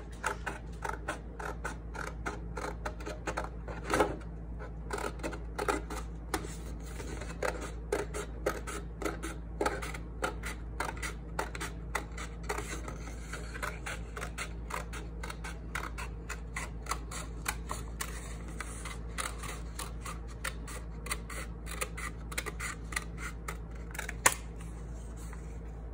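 Scissors cutting a circle out of a sheet of paper: a steady run of short, crisp snips in quick succession, with one sharper click near the end.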